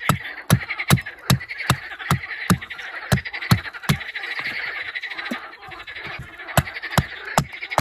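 Hatchet chopping a thin wooden stake on a stump, sharp blows about two to three a second with a short pause about five seconds in. A chorus of frogs croaks steadily behind.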